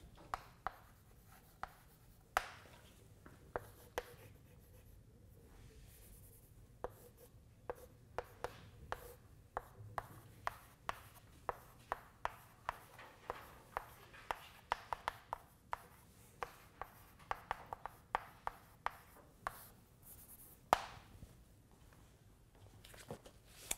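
Chalk tapping and scraping on a blackboard as a matrix of numbers and symbols is written: many short, sharp taps, coming fastest in the middle.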